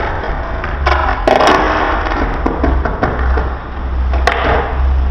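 A skateboard rolling and scraping on the court's hard surface, with several sharp knocks of the board, the loudest about a second in and another near the end, over a steady low rumble.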